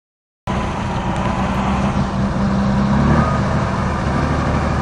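Heavy eight-wheel off-road trial truck's engine running steadily as the truck crawls across a muddy slope, its pitch shifting slightly about three seconds in.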